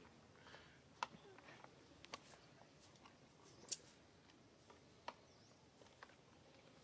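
Near silence, broken by a few faint, sharp clicks spaced a second or more apart.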